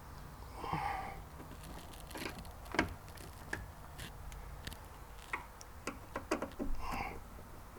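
Scattered light clicks and taps of a screwdriver working on the screws of a car door speaker. There are two brief louder rubbing sounds, one about a second in and one near the end.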